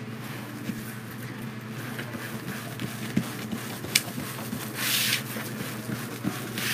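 Foil deco mesh rustling and crinkling as it is pressed flat and rolled up by hand, with a couple of light clicks and a louder crinkle about five seconds in.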